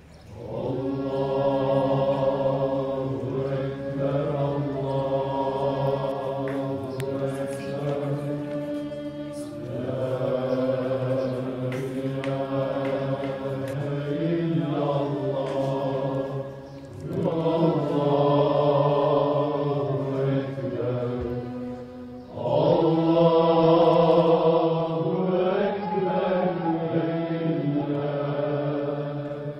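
A solo male voice chanting in long, held, ornamented phrases, about four of them with short breaks between.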